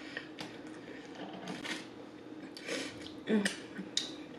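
A person eating fried chicken close to the microphone: quiet chewing with scattered wet mouth clicks, then a few louder lip smacks and finger-licking sounds in the last second or so.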